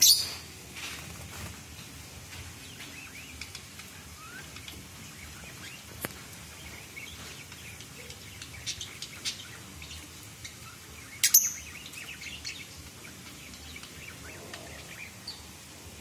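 A group of Fischer's lovebirds twittering and chirping, with a loud shrill call near the start and another about eleven seconds in.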